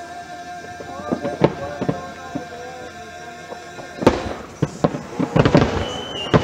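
Fireworks display: scattered bangs of bursting shells, then about four seconds in a louder, rapid run of many bangs and crackles.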